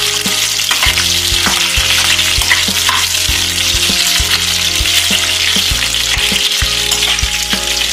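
Onion and capsicum pieces sizzling in hot oil in a kadhai, with a steady hiss. A steel ladle stirs them, giving repeated short clicks and scrapes against the pan.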